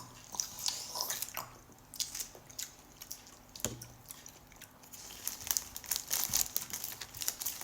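Close-up chewing of fresh strawberries: irregular wet clicks and squishes of bites and mouth sounds.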